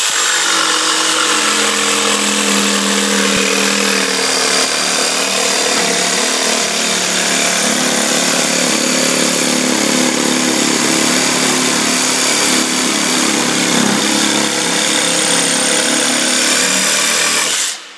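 DeWalt DCS331 18V XR cordless jigsaw running at a steady speed, its blade cutting through a laminate-faced chipboard worktop in one continuous cut. It runs loud and even, then stops near the end as the cut is finished.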